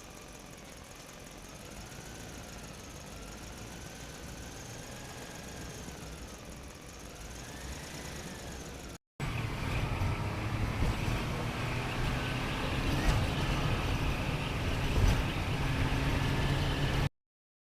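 Vehicle engine sounds in two parts. First a quiet stretch with a faint tone slowly wavering up and down; then, after a brief break about halfway, a louder, steady low engine hum.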